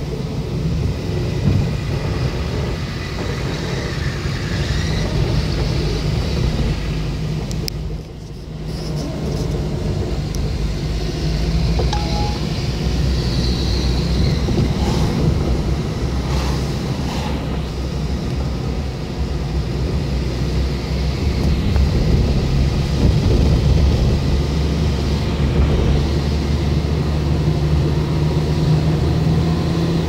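Car driving, heard from inside the cabin: a steady drone of engine and tyre noise, with a brief dip in loudness about eight seconds in.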